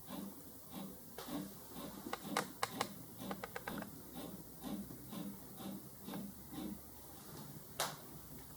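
ST Robotics 5-axis robot arm moving in short jog steps, a brief pulse of motor sound about two or three times a second, mixed with a quick run of sharp clicks from the jog controls about two to four seconds in and one more click near the end.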